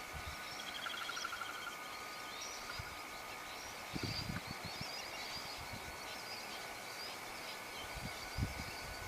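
Outdoor ambience: scattered bird chirps over a steady high-pitched whine, with a short trill about a second in. A brief low rumble comes about four seconds in and again near the end.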